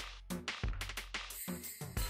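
Background music with a steady, punchy drum beat: kick and snare hits several times a second under sustained synth tones.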